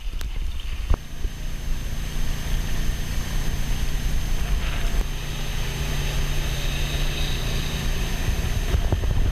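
Small outboard motor running steadily as it drives the sailboat along, from about a second in, with wind rushing on the microphone over it.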